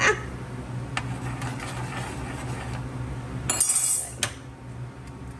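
A metal spoon clinking and scraping against a pan of simmering water, with a louder, harsher scrape about three and a half seconds in and a few light clicks, over a steady low hum.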